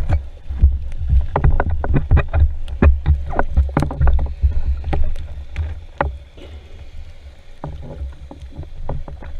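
Underwater rumble of water moving against a speargun-mounted action camera's housing, with many sharp clicks and knocks as hands handle a speared red mullet on the spear shaft. The clicks come thick in the first half and thin out after about six seconds.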